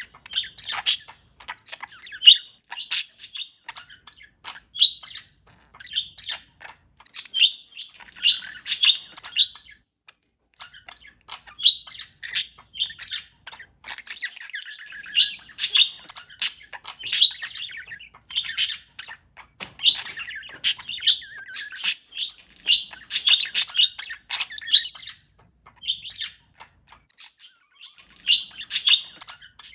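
Pet parakeet chirping: many short, high chirps in irregular runs, with a brief pause about ten seconds in.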